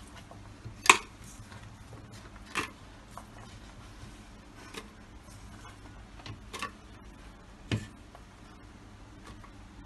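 Handfuls of chopped onion, garlic and ginger dropped into an empty plastic blender jar: a few scattered taps and knocks, the loudest about a second in, with the soft rustle of pieces being swept off the board.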